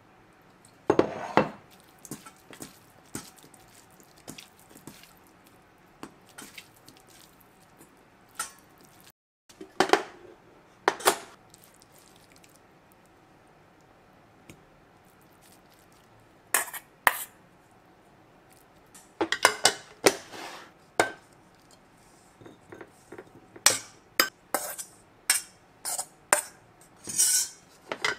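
Scattered clinks and knocks of kitchenware: a metal measuring spoon and stainless steel mixing bowls, and glass storage containers handled on the counter, with quiet gaps between. The knocks come thicker near the end.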